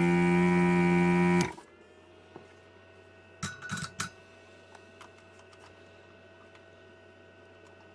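Vacuum pump of a Katsu ZD-8915 desoldering gun buzzing loudly while its trigger is held, sucking molten solder out of a circuit-board joint. It cuts off about a second and a half in, leaving a low hum and a few faint knocks.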